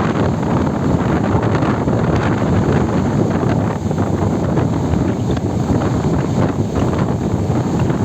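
Strong wind buffeting the microphone over the steady roar of a rough, stormy sea. The sound is loud and continuous throughout.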